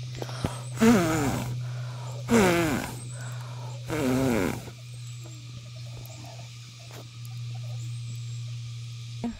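Three short vocal calls about a second and a half apart, each sliding down in pitch, over a steady low hum.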